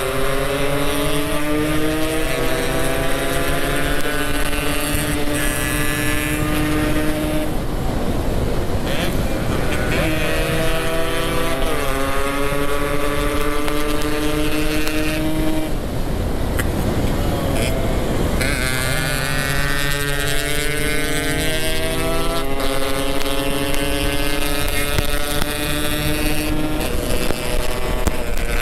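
Yamaha RX-King two-stroke single-cylinder engine pulling through the gears under way, its pitch rising and then dropping back with each shift. Twice the engine note gives way for a couple of seconds to a rush of noise.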